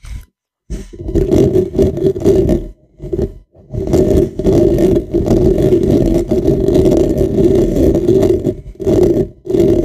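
Fingers and nails scratching and rubbing directly on a microphone's head: a loud, close, scratchy rumble that starts about a second in and runs in stretches, with short breaks around three seconds in and near the end.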